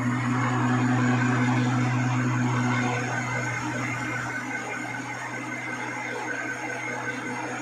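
Horizontal milling machine running, its arbor-mounted disc cutter milling a metal block held in a vise under coolant. A steady machine hum comes with a hiss of cutting noise, and the hum drops a little about three seconds in.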